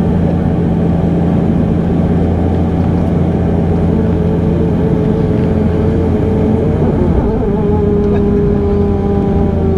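Bombardier Dash 8 Q400 turboprop engines and propellers heard from inside the cabin, a steady low drone with a buzzing hum that sounds like a lawn mower. About seven seconds in, the tones shift in pitch and a higher tone then holds steady.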